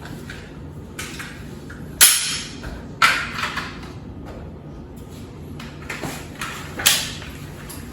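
Gear being handled and packed into a backpack: a series of sharp knocks and short scrapes, about six, the loudest about two seconds in and a quick cluster around three seconds.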